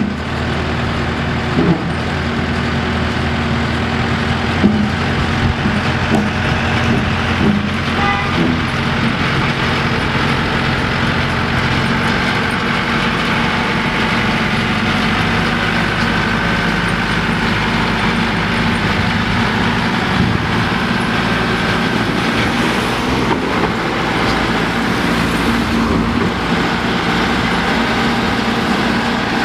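A heavy road vehicle's engine running steadily, a low even drone that carries on throughout.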